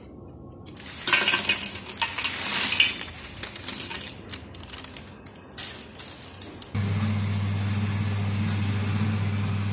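Crisp oven-baked dried fish fillet and seaweed strips rustling and clattering against an enamel plate as they are tossed about, with scattered light clicks. About seven seconds in a steady low hum starts suddenly and carries on.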